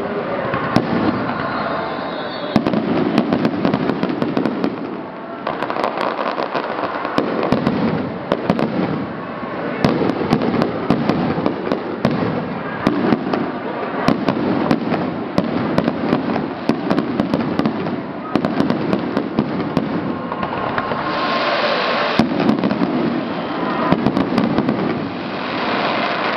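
Aerial firework shells bursting one after another in a dense barrage, with many sharp bangs overlapping and no let-up.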